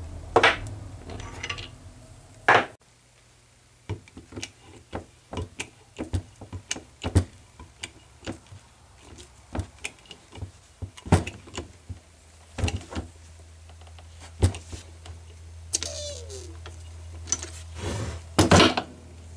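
Hand-pumped hydraulic wire crimper: metal dies clack into its head, then a run of short clicks about two a second as the handle is pumped to close the jaws on a cable lug. A short falling squeak comes near the end, followed by a couple of loud metal clanks, over a steady low hum.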